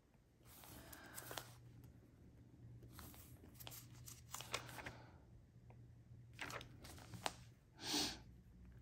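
Pen writing on planner paper: faint scratchy strokes in short spells with a few light clicks, and a louder brief rustle near the end.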